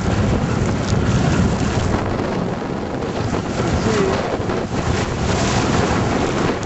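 Wind buffeting the microphone in a steady, loud rush, with a faint short wavering chirp about two thirds of the way through.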